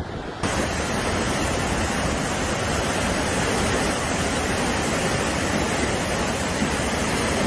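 Floodwater of a river in spate rushing over rapids: a steady, loud rush of water that turns brighter and hissier about half a second in.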